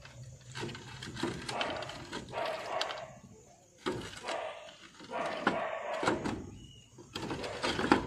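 Clay roof tiles clinking and scraping against one another as they are lifted and shifted by hand, in a string of short sharp knocks.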